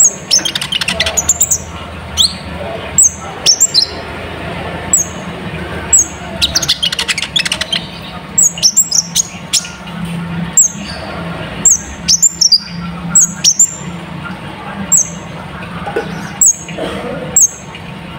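A sunbird (kolibri ninja) singing: a string of sharp, very high chip notes that each drop in pitch, broken by rapid trilled runs about a second in and again around the middle. A steady low hum runs underneath.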